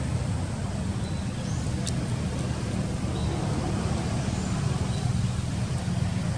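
Steady low outdoor rumble with faint, high, rising chirps every few seconds and a single light click about two seconds in.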